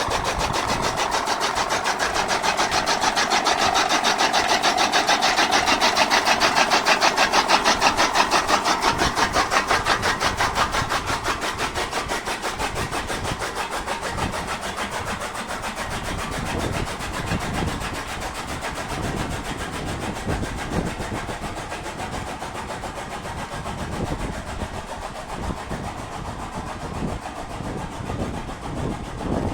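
An engine or motor running with a fast, even pulse, growing louder over the first several seconds and then easing off.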